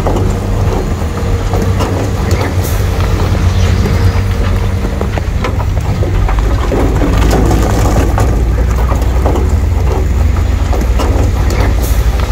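Heavy diesel earthmoving machinery running steadily, with rock crunching and clattering throughout. The engine note drops lower about halfway through.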